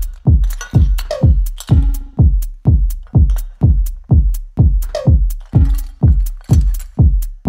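Electronic background music with a deep kick drum about twice a second, each hit dropping in pitch, and sharp high percussion ticks over it.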